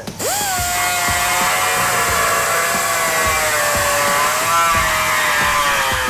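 Air-powered die grinder running a carbide burr to cut and enlarge a hole in rusty sheet steel: a steady high whine over hissing air. Its pitch sags slowly as the burr bites into the metal.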